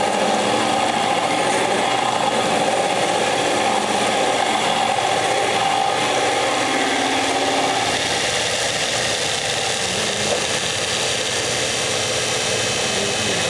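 Metal lathe running, boring out a drill-press pulley with an end mill: a steady machining noise with a tone that fades about eight seconds in.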